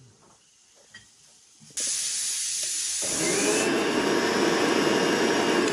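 Electric mixer grinder switching on abruptly about two seconds in and running loud, grinding roasted sesame seeds; its sound gets fuller and deeper about a second after it starts.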